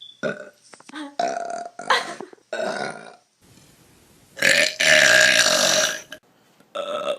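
A person burping: four or five short burps in quick succession, then one long, loud burp held at a steady pitch for about a second and a half, and another long burp starting near the end.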